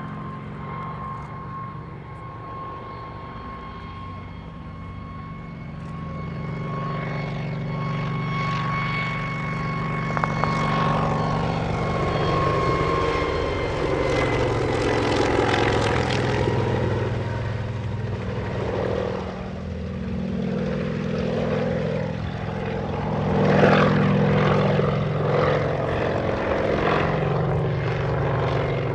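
Kamov Ka-26 coaxial-rotor helicopter, powered by two radial piston engines, flying a low close pass. The engine drone and the beat of the rotors grow louder from about a quarter of the way in and are loudest as it goes overhead. A steady whine drops in pitch as it passes, and the rotor beat surges again later as it banks and climbs away.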